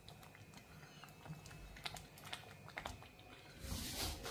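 Faint, irregular clicks and taps of a metal spoon against a steel saucepan as cooked white rice is scooped out, with a louder scrape just before the end.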